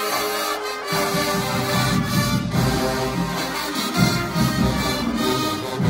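Marching band playing loud brass music: trumpets, saxophones and sousaphones together, with the low brass and bass coming in about a second in.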